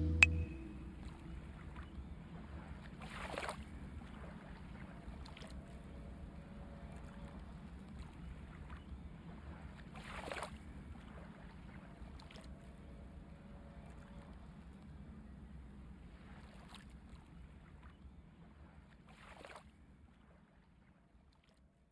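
Faint handling sounds from hands moving small plastic polygel tubes and a false nail over a fluffy towel: a few soft swishes and light taps, three of them clearer than the rest, over a low steady hum.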